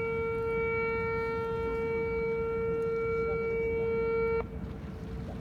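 Jetfoil's horn sounding one long, steady blast that cuts off suddenly about four and a half seconds in, over a low steady rumble that continues after it.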